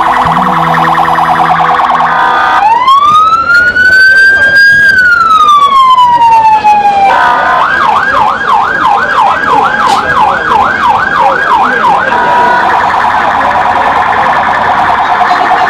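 Electronic vehicle siren switching through its modes: a fast warble, then about three seconds in one long wail that rises slowly and falls, then a yelp sweeping up and down about twice a second, then back to the fast warble.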